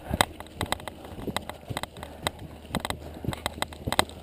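Footsteps on a dirt trail through tall grass, heard as a run of irregular short clicks and knocks.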